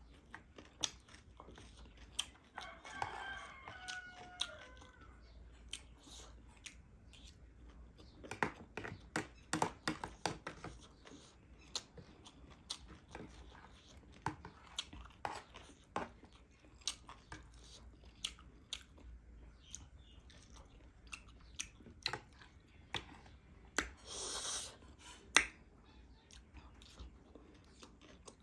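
Close-up mouth sounds of chewing crunchy chatpate, a spiced puffed-rice and dry-noodle mix: a run of sharp crunches and smacks, densest around 8–11 s, with occasional clinks of a metal spoon on the plate.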